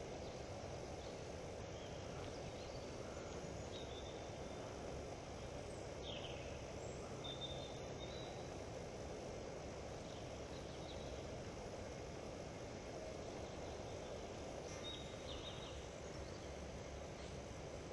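Steady woodland background noise with a few faint, short, high chirps scattered through it.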